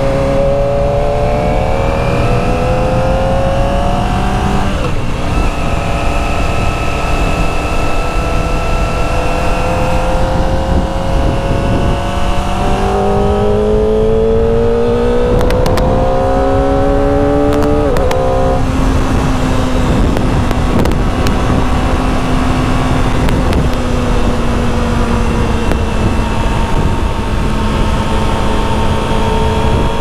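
Kawasaki ZX25R's 249 cc inline-four running through its stock exhaust while being ridden. The engine note climbs and then falls back sharply as the rider shifts up, once about five seconds in and again a little past halfway, then holds fairly steady at cruising speed. A steady rush of wind and road noise runs underneath.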